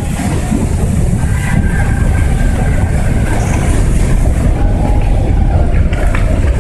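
A large mass of snow sliding off a roof and crashing down in slabs, a loud, steady rumble.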